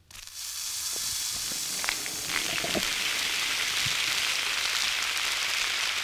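A Mentos-and-soda geyser erupting: a steady, fizzing hiss of foamy soda jetting out of the bottle, starting suddenly and holding, with spray falling back down.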